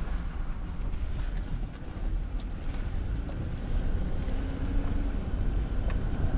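Car driving slowly, heard from inside the cabin: a steady low rumble of engine and tyres, with a few sharp clicks or rattles.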